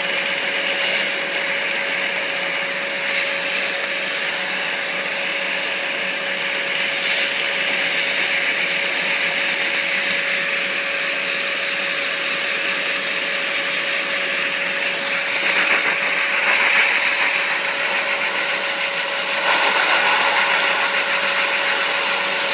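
Dyson vacuum cleaner running steadily with a constant whine over a rush of air, its suction powering a LEGO vacuum engine. The air rush grows louder about 15 seconds in and again from about 20 seconds in.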